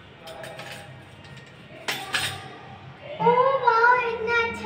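A couple of sharp clicks at the wall switchboard as a key card is pushed into the room's power slot. Then, a little after three seconds in, a high voice starts a long, drawn-out held sound, which is the loudest part.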